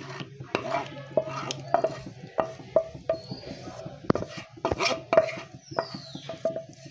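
Wooden spatula stirring watermelon juice with melted agar in a pan, knocking and scraping against the pan in short, irregular taps, about two or three a second.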